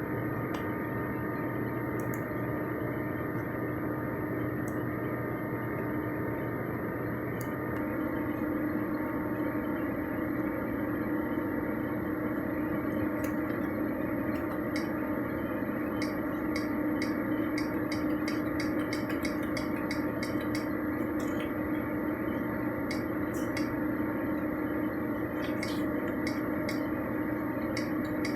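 A steady machine hum, with faint sharp clicks over it that come in quick runs in the second half.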